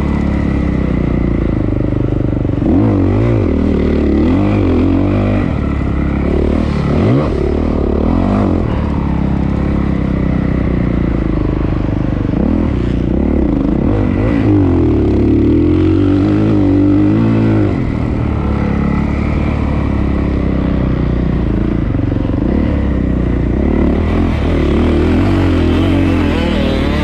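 Honda CRF450R single-cylinder four-stroke motocross bike ridden hard on the track, its engine revving up and falling back again and again as the throttle opens and closes.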